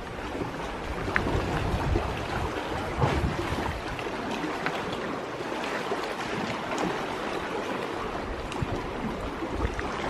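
Small sea waves lapping and splashing against a rocky shore and stone jetty, a steady wash of water with small scattered splashes. Occasional low rumbles on the microphone, strongest in the first few seconds and near the end.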